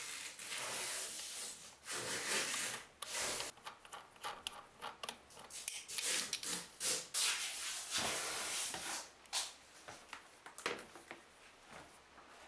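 Irregular rubbing and scraping as a bidet seat's plastic mounting bolt is worked loose by hand beneath the rim of a porcelain toilet bowl, in a string of short strokes that quiet down near the end.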